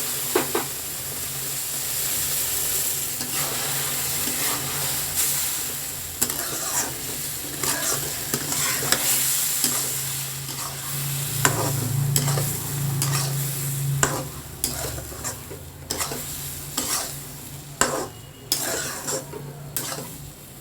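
A spatula stirring semolina upma in a hot kadai as water is added a little at a time, with a steady sizzle and frequent irregular scrapes and knocks of the spatula against the pan.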